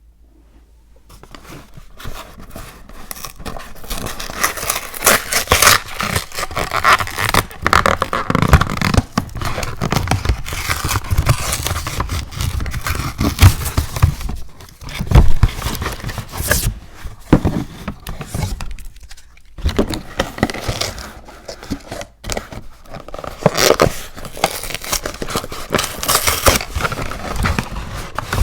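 Close-miked handling noise: irregular scraping, tearing and crinkling, with frequent sharp clicks and knocks, starting about a second in.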